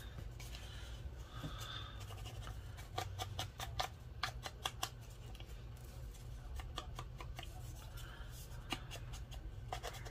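Paper being torn and handled by hand to rough up its edges: clusters of small, crisp snaps and rustles, busiest a few seconds in and again in the middle.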